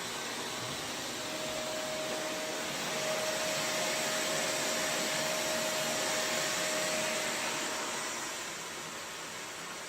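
Shark Navigator Lift-Away NV351 bagless upright vacuum running with a steady rushing motor-and-airflow noise. A faint whine rides on it and fades out about seven seconds in.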